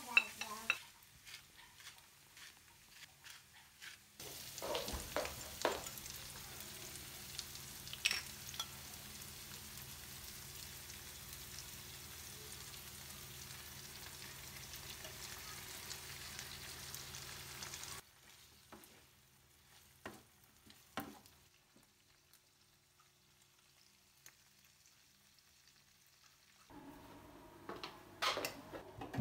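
Food frying in a pan, an even sizzle with a few sharp knocks, which cuts off suddenly about 18 seconds in. Quiet kitchen clicks follow, and a low hum starts near the end.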